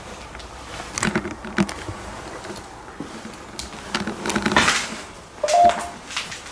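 A ghost-hunting "Ghost Tube" device gives a short, steady electronic warning beep near the end. Before it come scattered knocks and a rustle of someone walking and handling gear.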